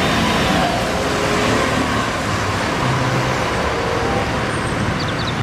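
City bus in street traffic, as a recorded sound effect: steady engine and road noise that cuts off suddenly at the end.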